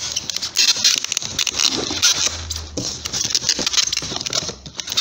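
Cardboard and plastic packaging rustling and scraping as hands rummage in an open shipping box and pull out a flat black cardboard welding mask, with many quick crackles and scrapes throughout.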